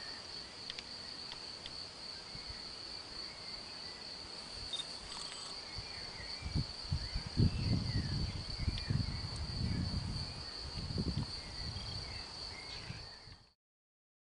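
A steady high-pitched insect trill with a few faint chirps over it. From about six seconds in, irregular low rumbles come and go and are the loudest sound. The sound cuts off suddenly near the end.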